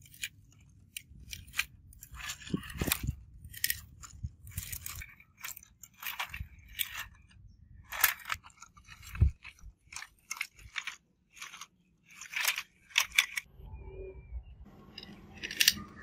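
Gravel crunching and small stones clicking in irregular bursts as a die-cast toy Humvee is dragged over rocky ground.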